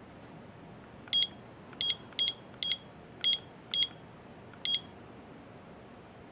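ST8020 digital alarm clock giving a short high beep at each button press as the alarm time is stepped up: seven beeps at uneven intervals, starting about a second in.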